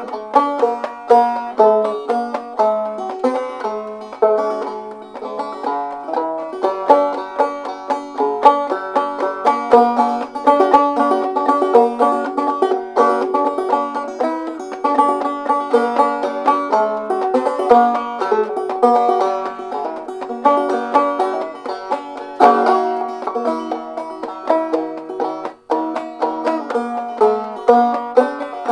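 Early-1900s Lyon & Healy parlor banjo, with a tone ring made of 9mm pistol shell casings, played clawhammer style with drop-thumb notes: a quick, steady stream of bright plucked notes and strums with no low bass, broken by a brief pause about 26 seconds in.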